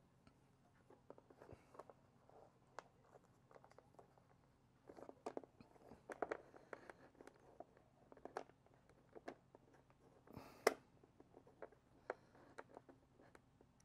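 Faint handling noises of fingers tying thread and a rubber band onto a cardboard firework box: scattered small clicks and rustles, with one sharper click about ten and a half seconds in.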